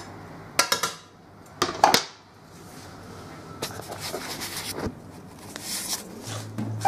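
A knife and a plastic cutting board clattering against a frying pan as diced potatoes are scraped in, with two sharp bursts of knocks in the first two seconds, then fainter kitchen handling noise.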